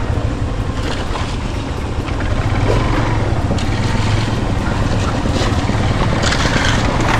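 Yamaha FZS V2 motorcycle's engine running steadily under wind and road noise as the bike rides over a rough, slippery dirt road.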